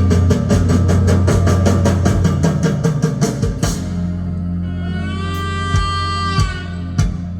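Jazz band music: fast, even percussion chugging like a train for about three and a half seconds, then stopping. Long held horn-like notes follow over a steady bass, with a few drum hits near the end.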